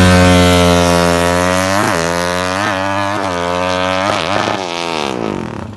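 Racing single-cylinder four-stroke engine of an MX FFA 325cc drag bike, run hard as the bike pulls away, with short dips in pitch as it shifts up through the gears. It then falls in pitch and fades as it moves off into the distance, and the sound cuts off suddenly near the end.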